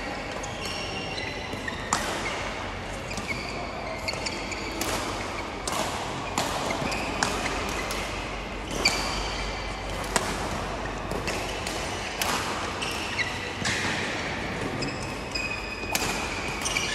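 Badminton rally: a string of sharp racket strikes on the shuttlecock every second or few, irregularly spaced and echoing in a large hall. Short high squeaks of court shoes on the floor come between the strikes.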